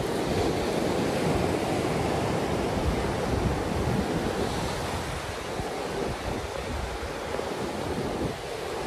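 Ocean surf washing steadily against the shore, with wind buffeting the microphone.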